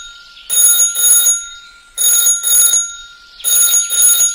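Bell-like ringing in a repeating double-ring pattern: pairs of short bright rings about every second and a half.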